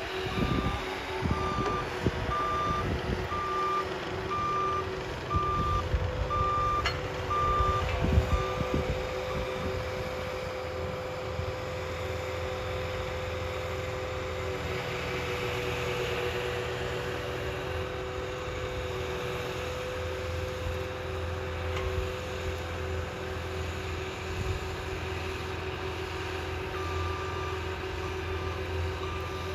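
Cat compact track loader running with its backup alarm beeping about once a second, stopping around nine seconds in and starting again near the end, over a steady engine and hydraulic drone. A few knocks sound in the first several seconds.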